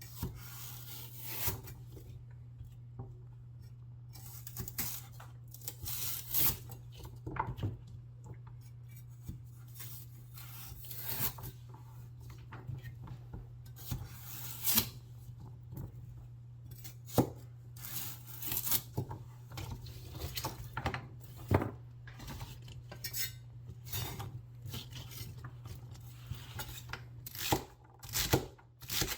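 A knife slicing celery on a cutting board: crisp, irregular cuts with the blade knocking on the board about once a second, coming faster near the end. A steady low hum underneath.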